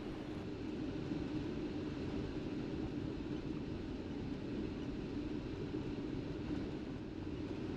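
Steady low drone of road and engine noise from a vehicle being driven at an even pace.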